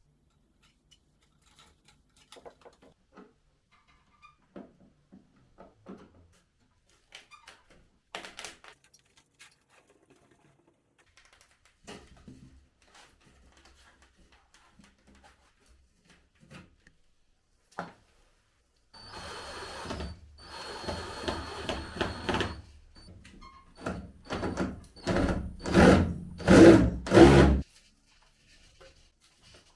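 Scattered small clicks and taps of handling, then a power drill running for about three seconds, followed near the end by several short, louder bursts of the drill.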